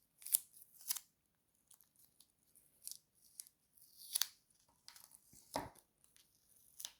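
Sticky tape being handled, pulled and torn or snipped: a series of short, sharp crackles and snips, several seconds apart.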